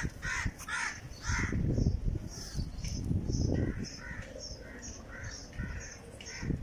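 Crows cawing in a quick repeated series, about three calls a second, pausing briefly and then going on as shorter calls. A low rumble on the microphone runs under them from about one to four seconds in.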